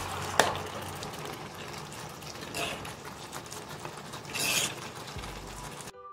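Chicken pieces in sauce sizzling and simmering in a skillet, with a sharp clink about half a second in and a louder scrape of a utensil against the pan past the middle. Shortly before the end it cuts suddenly to background music.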